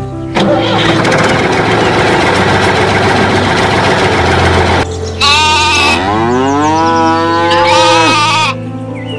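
A steady engine sound effect runs for the first few seconds. About five seconds in it gives way to a long, wavering, bleating animal call lasting some three seconds, which rises in pitch, holds and drops away. Background music plays throughout.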